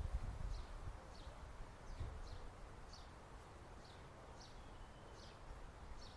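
A small bird calling over and over in short, high chirps, each sliding downward, roughly one every half second to a second, over a faint low rumble.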